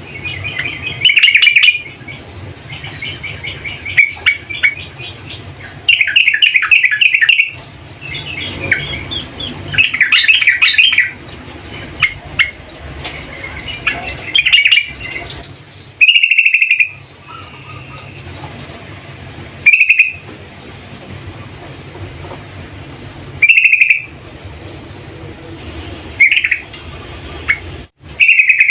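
Yellow-vented bulbul (trucukan) song, which the uploader presents as a female calling a male. Bubbly chattering phrases come in bursts through the first half, then the bird gives short single calls every three to four seconds.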